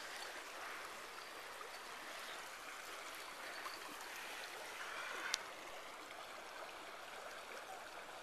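River water running steadily, with a single short sharp tap about five seconds in.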